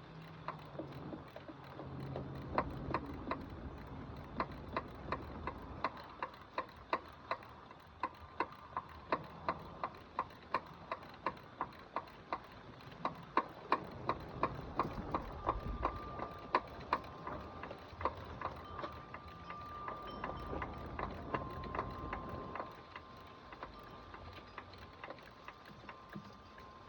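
Small ratchet wrench clicking in a steady rhythm, about two clicks a second, as a bolt is turned; the clicking stops a few seconds before the end.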